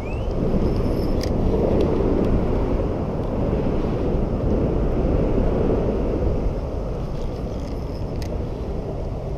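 A steady low rumbling noise, with a brief rising chirp at the start and a couple of faint sharp clicks about a second in and near the end.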